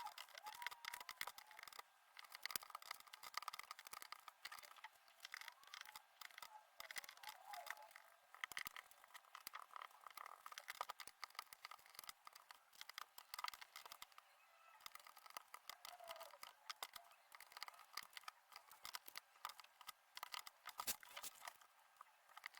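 Faint, rapid, irregular clicking and rustling of cardboard jigsaw puzzle pieces being handled and fitted, sped up.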